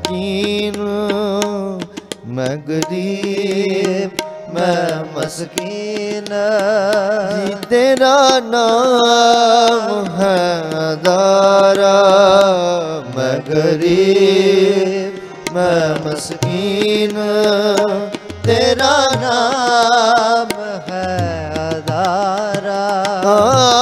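Shabad kirtan music: harmoniums playing with steady tabla strokes under a long-held, wavering sung melody without clear words.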